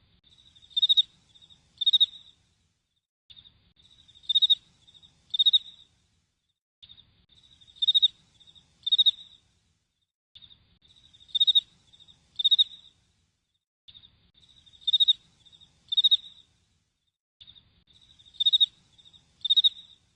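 Crickets chirping in a high-pitched, repeating pattern: a run of soft chirps, then two loud chirps about a second apart, the whole cycle coming round about every three and a half seconds like a loop.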